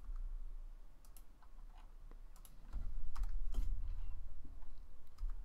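Computer keyboard keys tapped in scattered single clicks, with a low rumble that swells about three seconds in.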